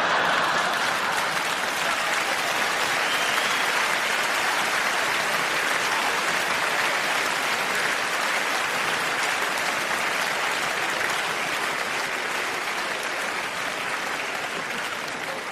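Large hall audience applauding, a dense, sustained clapping that is strongest at the start and slowly tapers off near the end.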